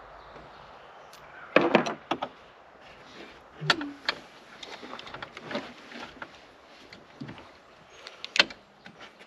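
Small metal tools and hardware clinking and clattering as the helm console is worked apart by hand: scattered light clicks and ticks, with a few sharper clanks, the loudest a cluster near two seconds in and one about eight seconds in.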